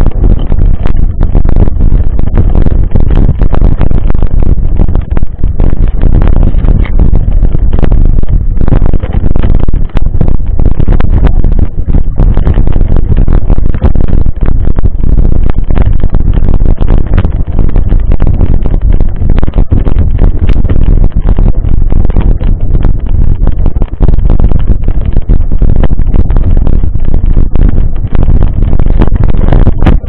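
Mountain bike ridden over rough dirt singletrack, heard through the action camera riding on it: a loud, constant rumble of wind and vibration, full of small knocks and rattles from the trail.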